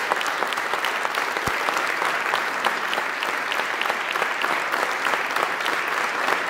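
Audience applauding: many people clapping steadily after a prize is announced.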